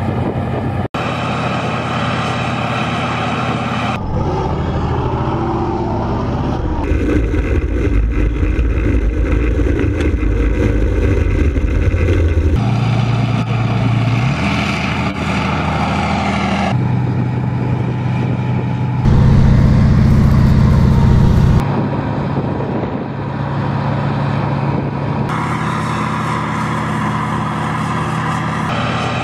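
Diesel engines of tanks and an armoured recovery vehicle running. The engine note changes abruptly every few seconds from shot to shot, and the loudest, deepest stretch comes about two-thirds of the way in.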